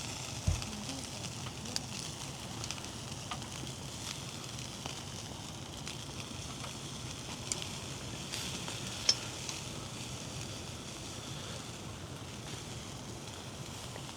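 Food sizzling as it fries in a hot pan: a steady hiss with scattered sharp pops of spitting fat. There is a single low thump about half a second in.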